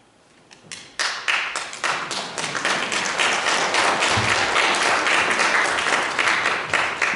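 A congregation applauding: a few scattered claps about half a second in, then steady clapping from many hands from about a second in, ending near the end.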